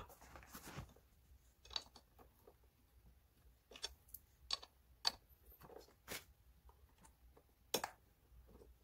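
Faint, scattered clicks and light taps of bolts being fitted by hand into the metal side bracket of a gaming chair.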